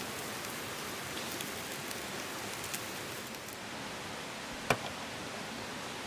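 Food sizzling in a pan over a campfire, a steady hiss whose brightest top drops away about three and a half seconds in. A single sharp click sounds about three-quarters of the way through.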